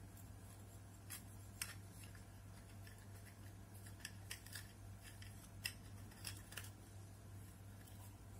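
Faint, scattered small clicks and taps of an LED circuit board and its components being handled and pressed into a metal bulb housing, over a steady low hum.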